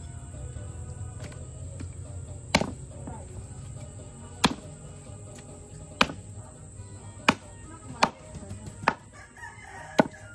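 Machete chopping through a large labang fish's head on a wooden stump block: about seven sharp chops, one to two seconds apart.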